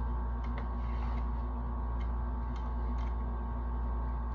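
Steady low electrical-sounding hum with a few faint, scattered ticks.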